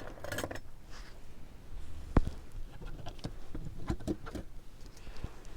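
Brooches and small costume jewelry being handled, set down and picked up: scattered light taps and rustles, with one sharp click about two seconds in.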